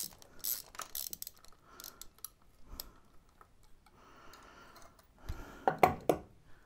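Ratchet wrench clicking rapidly as a spark plug is unscrewed from the engine's cylinder head, then slower scattered clicks. About five and a half seconds in come a few louder metallic clicks and clinks as the plug is worked free and lifted out.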